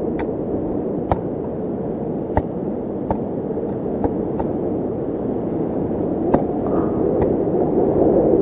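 Steady rushing noise, like wind blowing on the microphone, with about seven sharp clicks at irregular intervals.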